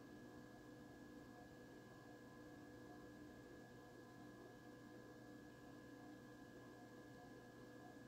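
Near silence: faint room tone with a steady, unchanging hum and a thin high whine.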